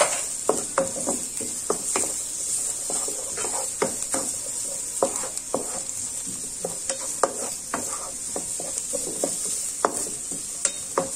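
Diced carrot and garlic sizzling in olive oil in a nonstick wok, a steady hiss under the irregular scrapes and taps of a wooden spatula stirring them against the pan.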